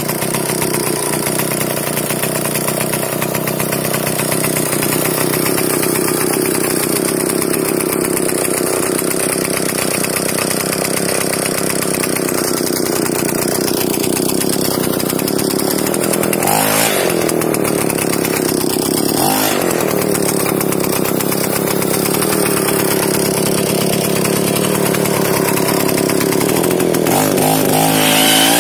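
Druzhba chainsaw's single-cylinder two-stroke engine running steadily on a homemade mini snowmobile. Its pitch dips and picks up again twice in the middle, and it revs up near the end.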